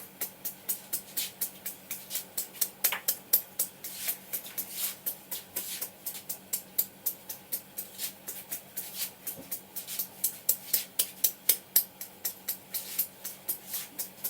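Barber's hands tapping and slapping rhythmically on the head in a percussive Indian head massage, about four quick, sharp slaps a second.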